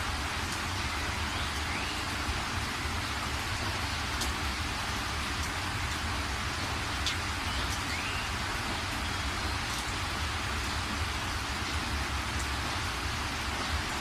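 Steady countryside rain: an even hiss of rainfall with a low rumble underneath and now and then a single drop ticking close by.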